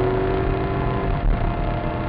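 Maserati Coupé Cambiocorsa's 4.2-litre V8 running hard at track speed, heard from inside the cabin over road noise, with a short break in the engine note a little over a second in.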